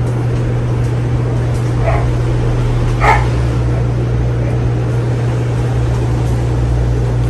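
Gulf Coast Tiara ceiling fan's 188x25mm motor running with a steady low hum and the constant rush of its 52-inch blades. Two short high yelps cut in about two and three seconds in.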